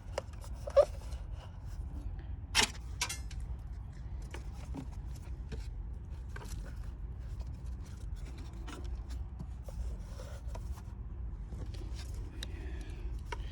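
Scattered scrapes, rubs and clicks of a wire being worked through a car's body panels by hand, with two sharper clicks in the first three seconds, over a steady low rumble.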